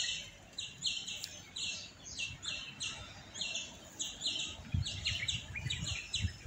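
Birds chirping: a steady run of short, high chirps, about three or four a second.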